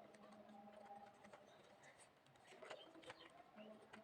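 Near silence, with a few faint clicks and light scrapes of something being handled.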